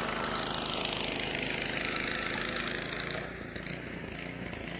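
Snow blower's small engine running steadily, its sound sinking in pitch and growing quieter about three seconds in.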